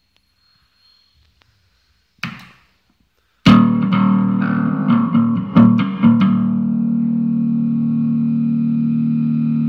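Electric bass played through effects pedals. Near silence at first, with no hum or hiss from the pedal power supply. A short note comes about two seconds in, then a loud struck note with several quick re-strikes that is left to ring on steadily.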